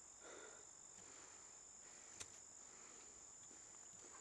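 Faint, steady high-pitched insect chorus, with a single sharp click about two seconds in.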